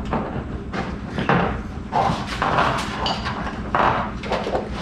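Galvanized steel sheet being handled and worked on a shop bench: a run of irregular thumps, rattles and scrapes.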